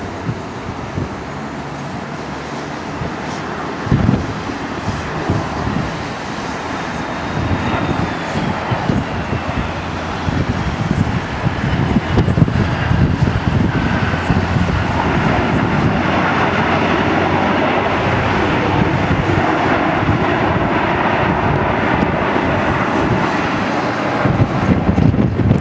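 Jet engine noise of a landing McDonnell Douglas MD-83, from its rear-mounted Pratt & Whitney JT8D turbofans: a high whine falls in pitch over the first several seconds, then the rush of engine noise grows louder about halfway through and holds steady. Wind gusts on the microphone underneath.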